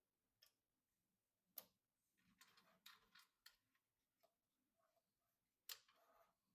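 Computer parts being handled during assembly: a few sharp plastic-and-metal clicks, one about a second and a half in and a louder one near the end, with a run of small taps and rustling in between.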